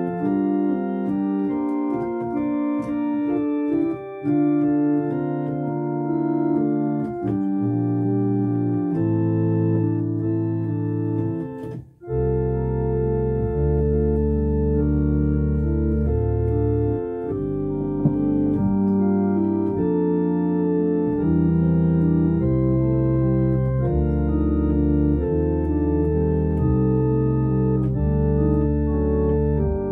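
Organ music: a slow piece of held chords whose notes sustain without fading. About twelve seconds in it breaks off for a moment, then carries on with a fuller, deeper bass line.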